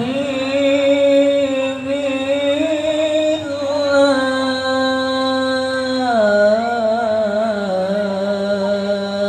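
Chant-like singing in long held notes with a wavering pitch. The tune holds one note for about six seconds, then steps down to a lower note.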